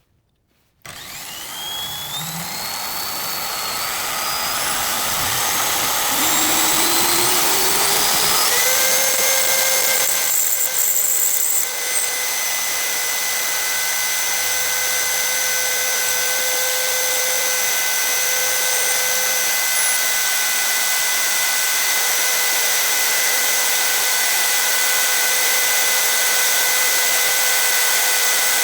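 Power tool spinning a screw at high speed for friction welding against a second screw. It starts abruptly about a second in, its whine rising in pitch for several seconds, then runs at a steady high pitch over a loud hiss, with a brief change around the middle.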